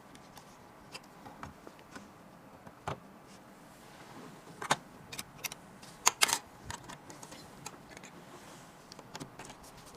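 Irregular light clicks and taps of computer parts being handled and fitted together, with a louder clack just under five seconds in and a pair about six seconds in, over a faint hiss.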